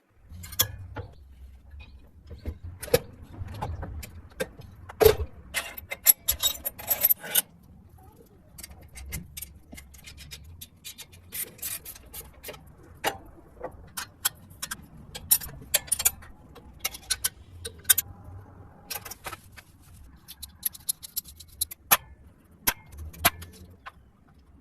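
Irregular sharp metallic clicks and clinks of hand tools and metal parts being handled, with a dense run of them about five to seven seconds in.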